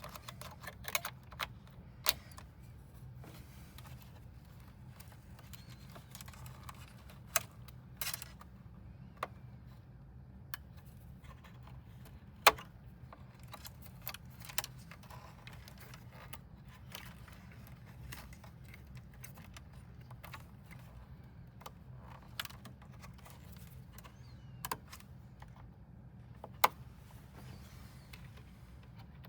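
Scattered light clicks and taps of small computer parts and a screwdriver being handled while working inside an all-in-one PC, over a steady low hum.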